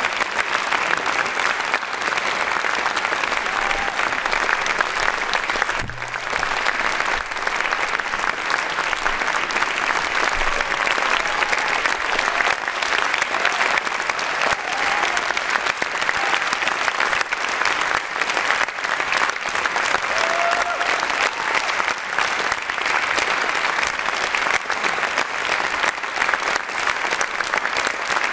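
Concert-hall audience applauding: steady, dense clapping that holds without letup.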